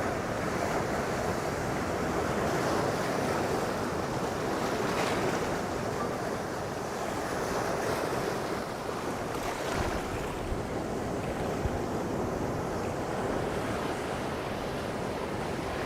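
Sea surf breaking steadily on the shore, with wind gusting across the microphone.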